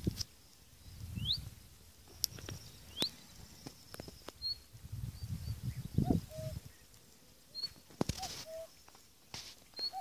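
Birds calling: a few quick high chirps and two short rising whistles in the first half, then a lower call, a brief upward note followed by a held one, repeated about three times, over intermittent low rumbling.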